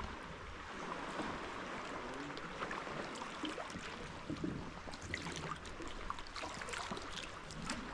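Sea water lapping and trickling against a rock cliff and a kayak hull, with many small splashes and drips scattered through.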